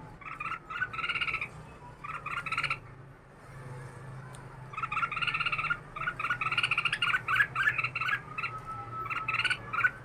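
Red-whiskered bulbul singing in bursts of quick, chattering notes. There is a short break about three seconds in, then a longer run of song through the second half. A faint steady low hum lies underneath.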